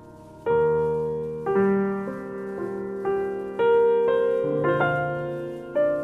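Background piano music: a slow, gentle melody of struck notes and chords, a new one about every half second to a second, each ringing and fading away.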